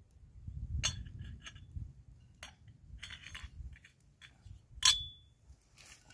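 Scattered clinks and taps of small hard objects being handled, the loudest a sharp clink about five seconds in that rings briefly, over a faint low rumble.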